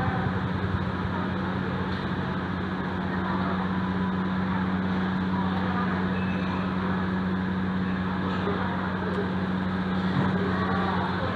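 Café ambience: a steady low hum with faint voices from diners in the background.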